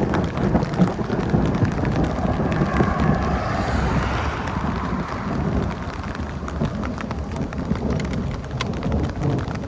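Thunder rumbling for several seconds and slowly fading, over steady rain.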